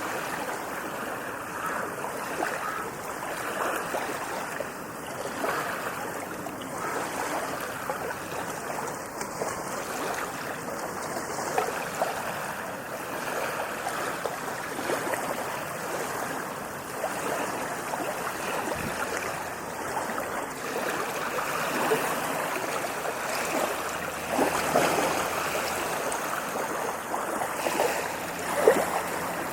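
Ocean waves washing in, a steady rushing wash of water with a few louder surges in the last few seconds.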